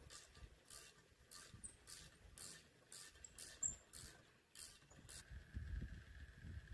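A hand tool scraping in a valve guide of a Mitsubishi 4G93 aluminium cylinder head: about nine short, scratchy metal-on-metal strokes, a little under two a second. A low rumble comes in about five seconds in.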